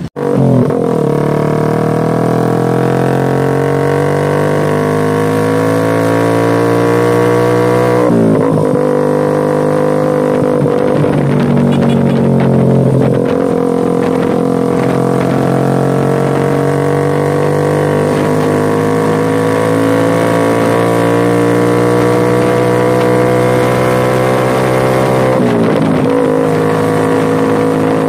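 Honda TMX 125 Alpha single-cylinder four-stroke motorcycle engine running under way through an aftermarket SC Project slip-on silencer on a stainless elbow. The exhaust note climbs slowly in pitch, with brief dips about 8, 11 and 25 seconds in before the revs build again.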